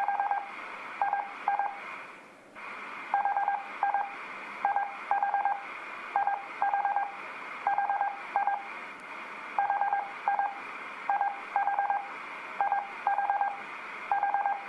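Morse code practice tone keying the letters H (four dits) and I (two dits): short groups of quick, even beeps at one steady pitch, repeated every half second or so. A steady hiss runs behind the beeps and drops out briefly about two seconds in.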